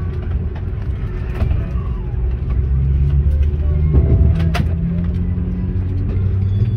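Steady low rumble inside the cabin of an Airbus A330-200 being pushed back, with a low hum that strengthens after a couple of seconds. A single sharp click about four and a half seconds in.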